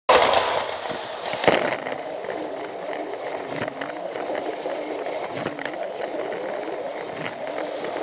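Plarail toy train running along plastic elevated track, picked up by a camera riding on the train: a steady motor whir and wheel rattle with irregular clicks, the loudest about a second and a half in.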